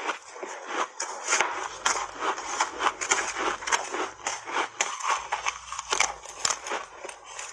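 Frozen mango-flavoured ice cake being bitten and chewed in big mouthfuls: a rapid, irregular run of sharp crunching cracks as the ice breaks between the teeth.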